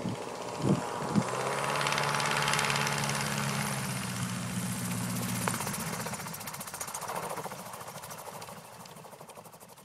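Wallis autogyro's engine and rotor running close by, loudest two to three seconds in, then fading steadily as it moves away across the field. A couple of short knocks about a second in.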